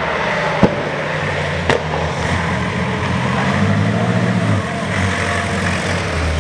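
Napier-Bentley Special's large Napier Lion aero engine pulling the car up the hill climb, a deep running note that rises in pitch around the middle and falls back. There are two sharp cracks, one about half a second in and one a second later.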